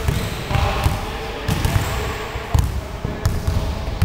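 Basketballs dribbled on a wooden gym floor: repeated low bouncing thuds, about two a second, with a few sharp higher clicks between them.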